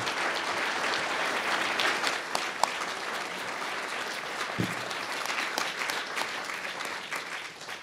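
Audience applauding: a room full of people clapping steadily, tapering off near the end.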